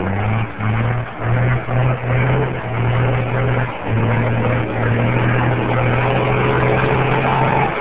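M35A2 deuce-and-a-half military truck's engine running hard under load on a steep climb, with a few brief dips in throttle in the first few seconds before holding steady.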